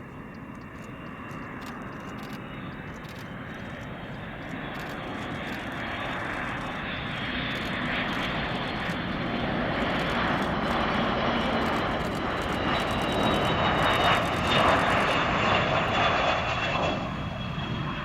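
Boeing KC-135R Stratotanker's four CFM F108 turbofan engines on landing, jet noise swelling steadily as the aircraft passes, loudest about fourteen seconds in and then easing off, with a high whine on top.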